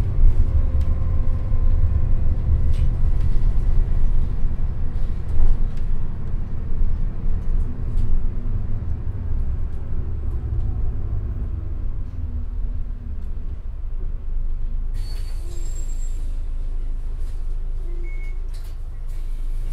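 Interior ride sound of an Isuzu Erga QPG-LV234L3 city bus: low diesel engine and road rumble easing off as the bus slows to a stop. About fifteen seconds in there is a short burst of air brake hiss, then the engine idles steadily.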